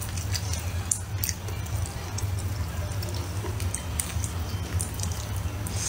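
Chewing meat: wet mouth sounds and small irregular clicks, over a steady low hum.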